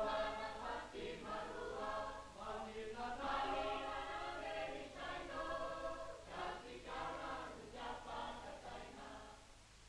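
A choir of several voices singing a melody together, dying away near the end.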